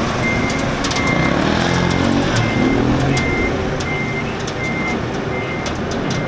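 A forklift's warning beeper sounding a steady run of high beeps, roughly one every 0.7 seconds, over the low running of its engine as it drives off.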